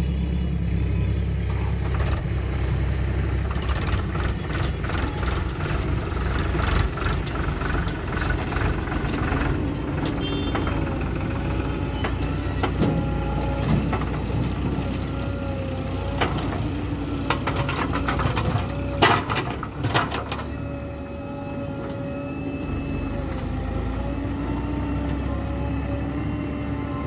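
Diesel engines of a JCB backhoe loader and a farm tractor running steadily while soil is dug and loaded. A cluster of sharp knocks comes about two-thirds of the way through.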